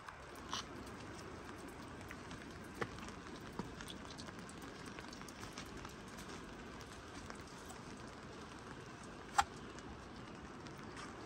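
Steady light rain, with scattered drops ticking on nearby surfaces and one sharper click about nine seconds in.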